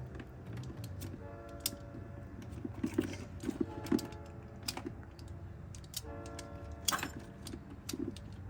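Irregular small clicks and scrapes of a small knife cutting back the plastic insulation on a car battery cable, over a steady low hum.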